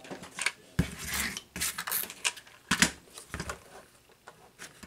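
A digital multimeter and a plastic screwdriver-set case being set down and shifted about on a cardboard-covered workbench: a run of knocks and clatters that dies down in the last second.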